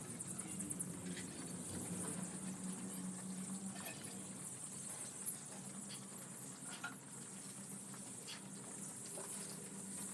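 Poultry shed ambience: a steady low hum under a steady high hiss, with scattered light clicks and taps.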